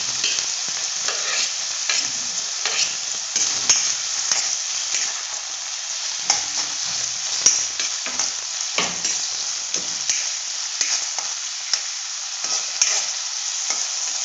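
Chopped onions sizzling in hot oil in a metal kadai, just after going in, with a spatula scraping and knocking against the pan many times as they are stirred.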